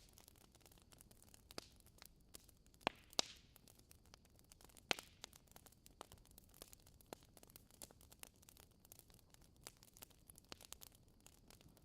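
Wood fire crackling in a fireplace: faint, scattered small clicks with a few sharper pops about three and five seconds in.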